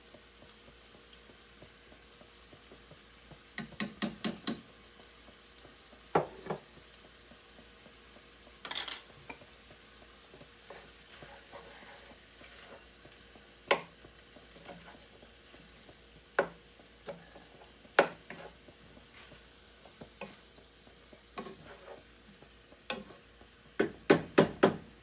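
A utensil stirring in a skillet of beef and broccoli stir-fry: scattered taps and clinks against the pan, with a quick run of four or five taps early and another cluster near the end, and one brief scrape.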